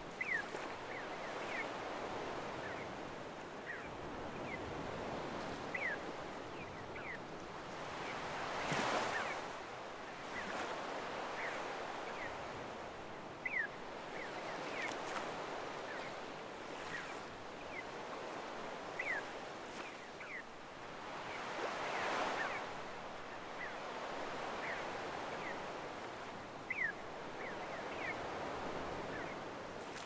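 Small waves washing up a sandy beach: a steady rush of surf that swells twice as waves break, with frequent short, high seagull calls over it.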